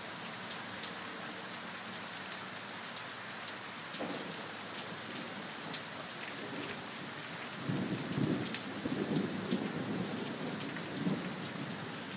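Steady rain falling with scattered drop ticks, and a low roll of thunder that swells about eight seconds in and rumbles for about three seconds before fading.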